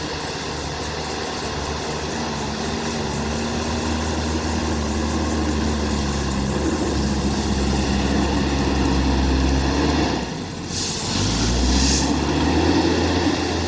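JCB backhoe loader's diesel engine running and working, growing louder over the first several seconds. About ten seconds in the engine dips briefly, then a hiss lasting just over a second sounds as the engine picks up again.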